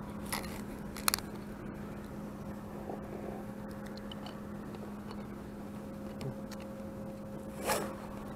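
A person eating a snack: a sharp crunch of a bite about a second in and a softer one near the end, over a steady low hum.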